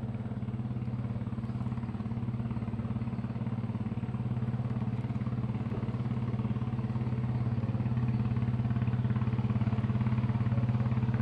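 A small engine running steadily at an even pitch, growing gradually louder.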